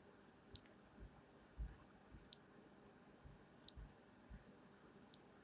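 Computer mouse clicking four times, a second or two apart, with a few faint low knocks in between.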